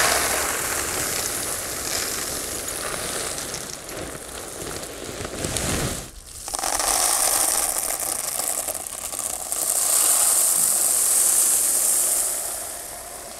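Expanded clay pebbles (Hydroton grow media) pouring from a bag into a plastic tub, a continuous rattling, pattering rush. It breaks off briefly about six seconds in, then the pebbles pour again into a pot and tail off near the end.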